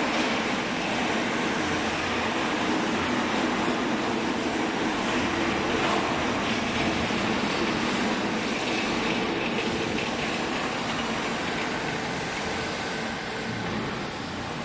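Hydraulic baler for used clothes running, its electric motor and hydraulic pump giving a steady mechanical drone with a faint hum.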